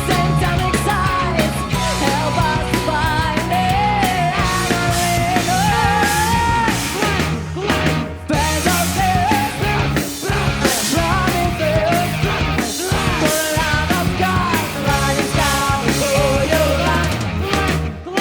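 Rock band playing live, loud and continuous, in a punk-rock style, with a melody line bending over a steady bass and drums. The music briefly drops twice about halfway through.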